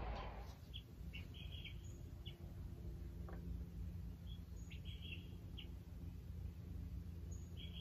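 Faint, short bird chirps recurring every second or so over a steady low hum.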